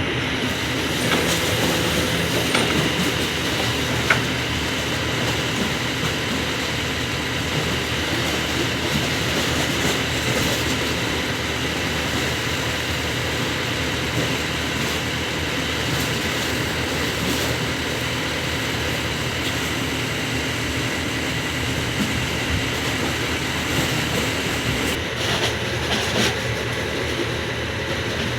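Kobelco SK200 hydraulic excavator's diesel engine running steadily under work, with occasional metallic knocks and squeals.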